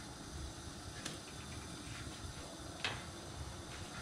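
Faint steady sizzle of a thin milk pancake frying in an oiled frying pan, with two light clicks of the spatula against the pan, about a second in and a louder one near three seconds.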